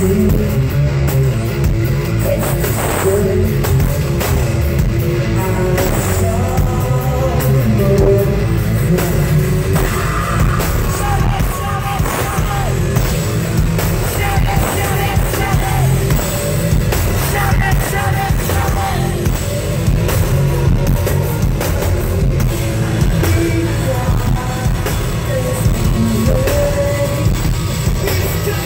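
A metal band playing live: heavy distorted guitars, drum kit and a singer's vocals, loud and continuous, heard from the crowd.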